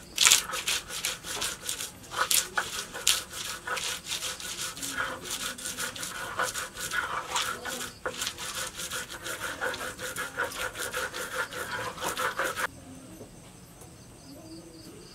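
Garlic cloves and spices being ground on a flat stone grinding slab, a quick run of scraping and rubbing strokes of stone and hands on stone. The strokes stop abruptly about thirteen seconds in.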